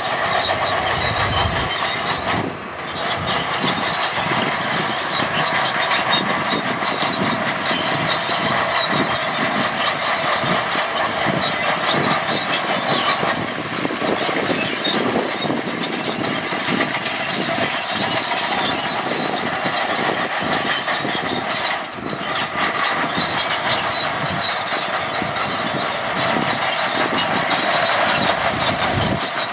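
Heavy earthmoving machinery working: steady engine noise under a continuous dense rattling clatter, dipping briefly twice.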